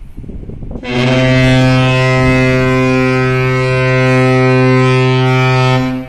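A container ship's horn sounding one long, deep, steady blast of about five seconds. It starts about a second in and cuts off shortly before the end.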